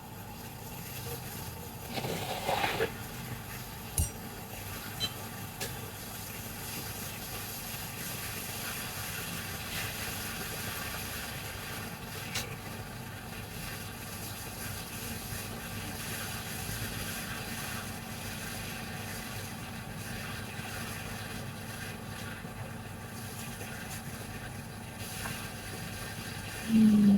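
Steady blowing hiss of a hot-air rework station working on a laptop motherboard, with a few light clicks and taps of tools two to five seconds in.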